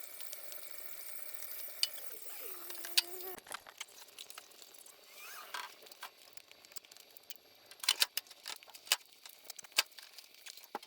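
Scattered light clicks and small metallic ticks of hand work pulling the upholstery cover off a truck bench seat, with a few clustered near the end.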